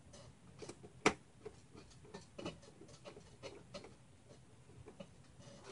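Faint, irregular small clicks and light taps of hard computer parts being handled and fitted into a PC case, with one sharper click about a second in.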